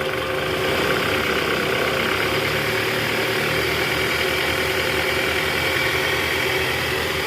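Toyota Alphard's 2AZ-FE 2.4-litre four-cylinder engine running steadily at low revs, now fitted with a new fan-belt tensioner, with no belt growl or squeal.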